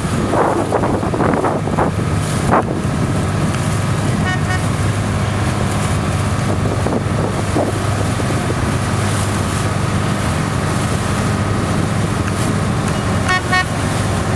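Boat engine running steadily under way on the water, with wind and water noise. Two short bursts of rapidly repeated high tones cut in, about four seconds in and again near the end.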